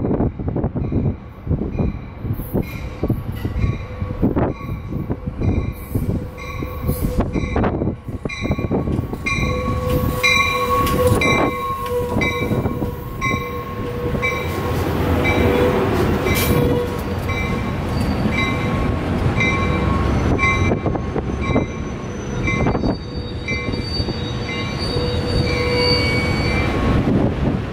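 Amtrak California bilevel passenger train pulling into the platform: wheels clicking over rail joints, then brakes squealing with steady high tones as it slows to a stop. A high tone repeats at a steady rate throughout.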